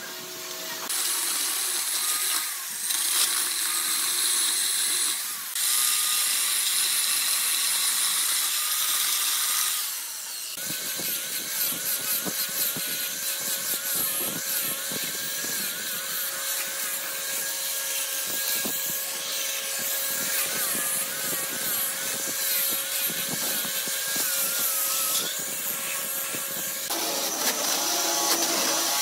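Power tools working dry log stumps: a power tool cutting wood for about the first ten seconds, then a handheld angle grinder with a sanding disc running against the log, its pitch wavering as it is pressed into the wood.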